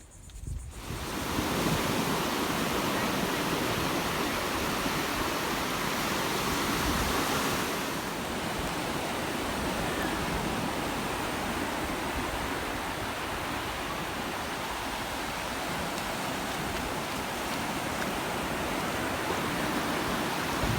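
Ocean surf washing onto a beach: a steady rush of noise that comes up about a second in.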